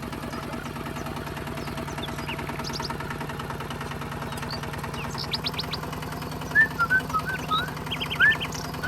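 Small engine running steadily with a fast, even chugging pulse, typical of a mini tractor's motor. Short high chirps sound over it several times in the second half.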